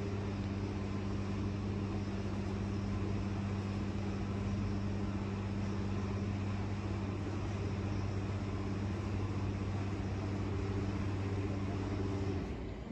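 A steady low mechanical hum with a few held tones, which cuts off abruptly near the end.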